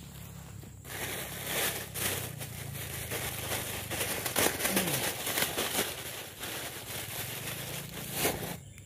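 Thin clear plastic bag crinkling and rustling as it is handled with a catch of fish inside. The rustling starts about a second in and stops shortly before the end.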